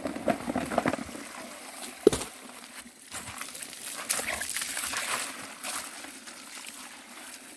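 Water from a garden hose pouring into a plastic bucket of stones, rinsing mud off the stones, with a hissing splash and stones clicking in the bucket. A single knock about two seconds in.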